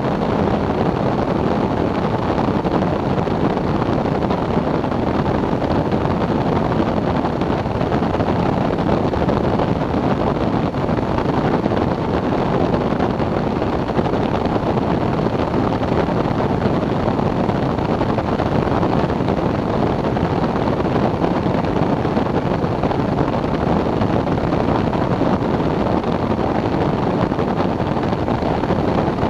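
Steady rush of airflow over the microphone of a camera mounted on the wing of a flexwing microlight trike in flight, with the trike's pusher-propeller engine running underneath.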